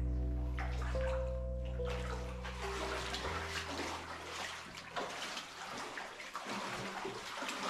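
Background music of held notes, with a few notes changing, that stops about three seconds in. Then irregular splashing and sloshing of water.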